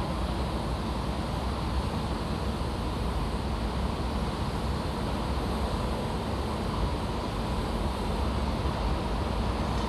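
Construction-site ambience: a steady, deep rumble of engines and machinery, with no distinct knocks or bangs.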